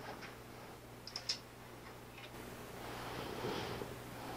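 Quiet room tone with a steady low electrical hum and two or three faint, light clicks about a second in.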